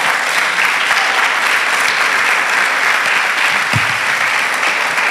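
Congregation applauding: a steady, continuous clatter of many hands clapping.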